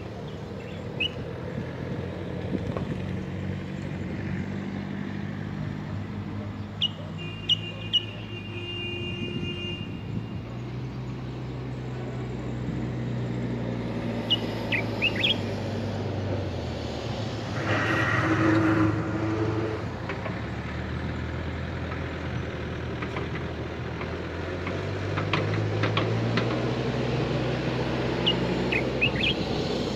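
Steady road traffic hum, with one vehicle passing louder a little past the middle. Short high bird chirps come in a few brief bunches over it.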